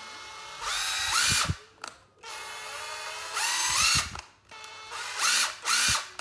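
Makita TD135D cordless impact driver run free three times on its variable-speed trigger. Each run starts as a steady, lower whine, the pitch climbs as the speed rises, and the motor stops abruptly on release.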